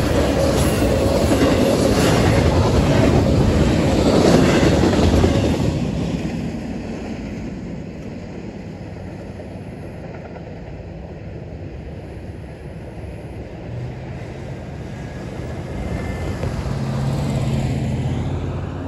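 Tail end of a double-stack intermodal freight train passing over a grade crossing, with steel wheels rumbling and clattering on the rails, fading out about five or six seconds in as the last car clears. Near the end a road vehicle drives up and the sound swells, then eases.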